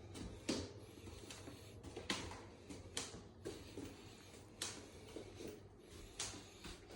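A series of light, sharp taps or knocks at uneven intervals, about five over several seconds, over low room noise.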